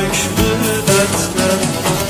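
Background music: a song with a melodic line over instrumental accompaniment.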